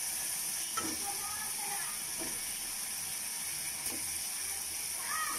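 Thick spice paste sizzling steadily in a steel karai as fried fish pieces are added, with a few light knocks and scrapes of a steel spatula against the pan.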